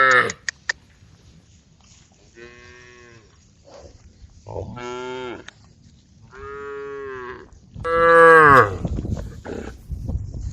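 Cows mooing: the tail of one call at the very start, then four drawn-out moos about a second each, the last and loudest about eight seconds in. A few sharp clicks just after the first call.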